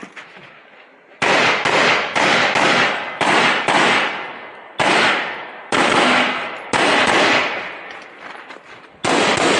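AR-15 rifle shots fired in a string, each crack followed by a fading echo. About seven come in quick succession over the first few seconds, then slower single shots follow, the last near the end.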